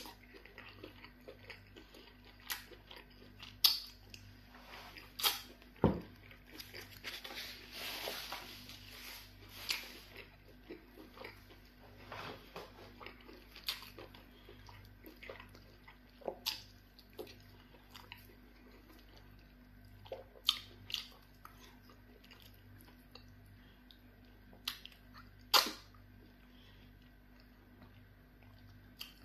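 Eating sounds from pounded yam fufu eaten by hand with soup: wet chewing and mouth smacks, sticky squelches as fingers pinch and dip the fufu, and scattered sharp clicks.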